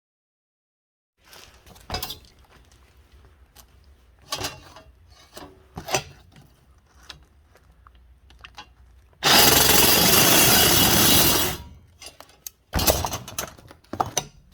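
Power saw with a coarse-toothed blade cutting thick aluminum stock in one loud burst of about two seconds, some nine seconds in, and a shorter burst near the end. Before the cut there are scattered knocks and scrapes.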